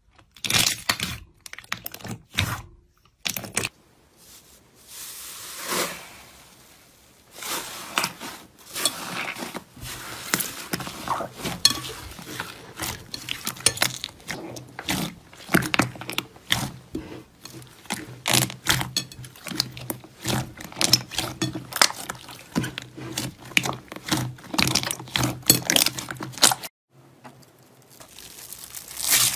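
Hands pressing and kneading slime in a bowl: sticky squelches and quick popping clicks of trapped air, in several separate takes with short pauses between. Near the end a hand presses into clear slime packed with rice-like beads, and it starts to crackle.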